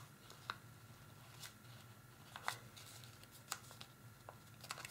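Faint crinkles and ticks of origami paper being folded and pressed by fingers as a corner is tucked inside, a few separate small sounds about a second apart.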